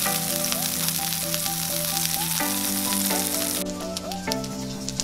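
Ground beef patty sizzling as it fries in oil in a hot pan, with background music. The dense sizzle thins about three and a half seconds in, leaving scattered pops and crackles.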